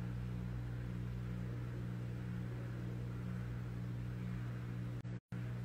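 Steady low hum with a hiss over it, unchanging in level, that drops out to dead silence for a moment a little over five seconds in.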